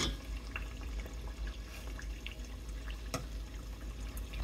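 Hot oil sizzling steadily around maandazi dough deep-frying in a pot, with faint scattered crackles and a single light knock about three seconds in.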